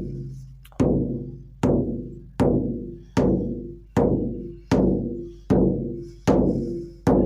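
18-inch horse-hide shamanic frame drum on a cedar hoop, struck in a slow steady beat about once every 0.8 seconds, about ten strokes. Each stroke rings on with several overtones that fade over most of a second.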